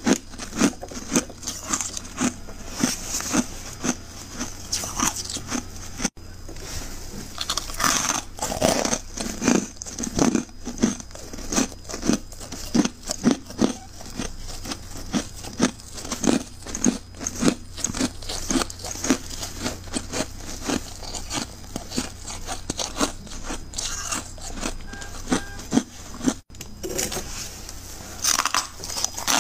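Chunks of powdery freezer frost crunching in a steady run of crisp crunches, about two a second, cutting out briefly twice.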